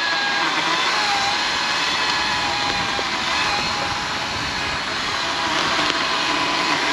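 Ryobi brushless 14-inch battery chainsaw running steadily, its chain cutting into a tree trunk, giving an even whine.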